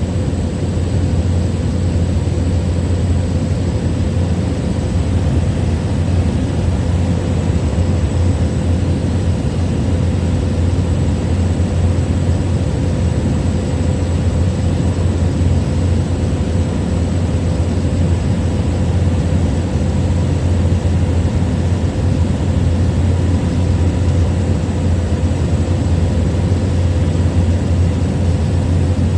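Small plane's engine and propeller running steadily in cruise, heard from inside the cabin: an even low hum with a constant higher tone over it.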